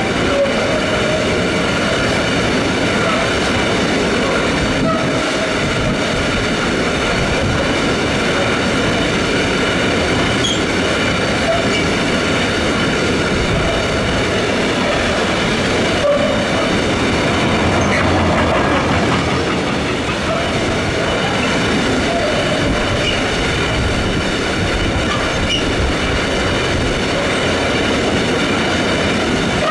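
Freight train of tank wagons rolling steadily past on the Rhine valley line, a continuous loud rumble of wheels on rail. Steady high-pitched ringing tones run over the rumble throughout.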